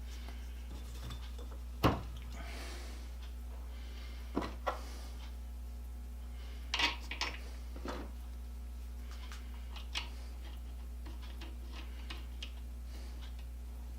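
Scattered sharp clicks and clinks of metal parts being handled and set down, the loudest about two seconds in and a small cluster about seven seconds in, over a steady low hum.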